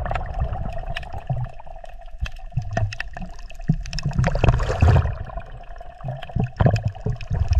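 Water splashing and churning as a dog thrashes and paddles in deep water, with many sharp splashes over a heavy low rumble.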